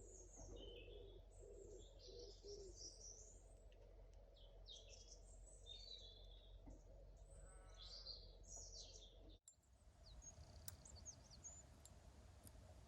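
Faint songbirds chirping and twittering in many short, rising and falling notes. They break off abruptly about nine seconds in, after which only fainter high ticks and chirps remain.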